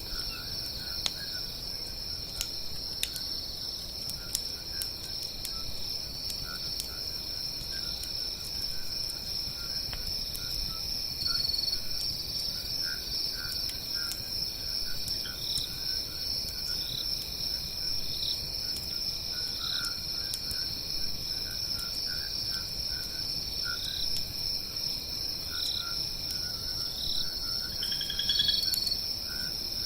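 A steady high chorus of crickets and other insects, with short calls repeating over it and a louder rising call near the end. Now and then a campfire crackles with a single sharp pop.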